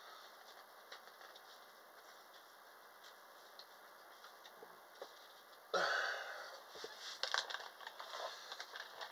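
Packaging being handled and opened: faint rustling and ticking, then a sudden louder rustle about six seconds in, followed by scattered crinkles and clicks.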